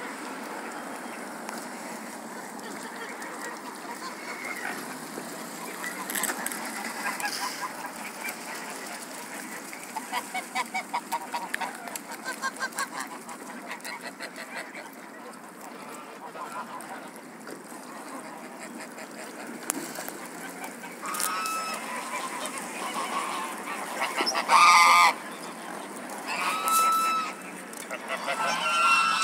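Flock of domestic geese honking and cackling, among other waterbirds. A rapid run of repeated calls comes about ten seconds in, and loud, separate honks in the last third, the loudest a little before the end.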